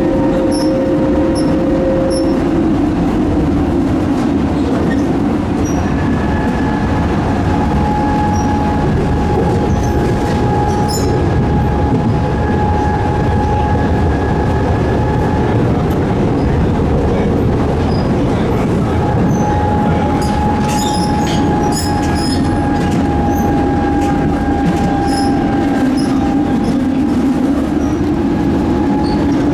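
Electric tram in motion: steady running noise of wheels on rails, with a high whine that holds for several seconds at a time and occasional light clicks.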